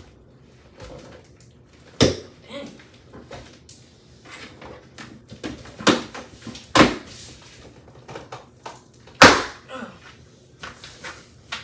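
A cardboard shipping box being opened and handled by hand: tape and cardboard scraping and rustling, with four sharp knocks.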